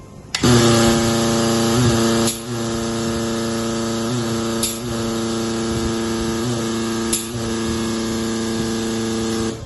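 Air-driven hydraulic torque wrench pump (AMAX) running on compressed air: a steady hum with loud air hiss, starting abruptly and pausing with a brief click about every two and a half seconds. It is being run to pressurize the pump and pre-fill the hoses, which are coupled end to end so the oil circulates. It cuts off near the end.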